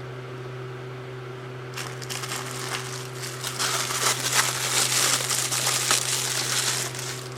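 Steady electric motor hum from the cylindrical grinder. From about two seconds in until near the end, a crinkling, rustling handling noise with many small clicks lies over it.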